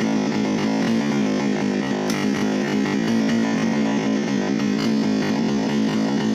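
Background music: fast synthesizer and keyboard music with a steady, busy beat.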